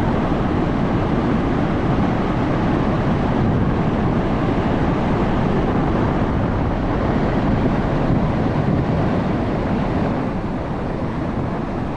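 Muddy floodwater rushing through dam spillway gates and over a weir, a steady, unbroken rush of water.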